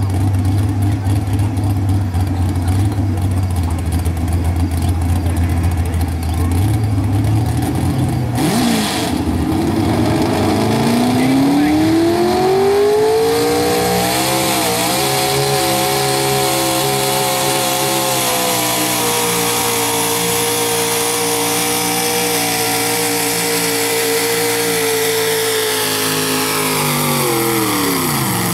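Small-block Chevy V8 of a two-wheel-drive pickup at a truck pull, idling low, then revving up about ten seconds in and held at high, steady revs under load while dragging a weight-transfer sled. The revs drop off sharply near the end as the pull stops.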